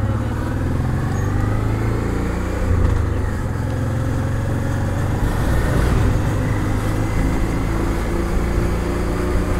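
Honda Transalp 650's V-twin engine running steadily at a low cruising speed, heard from the rider's seat, while an oncoming car and a bus pass close by.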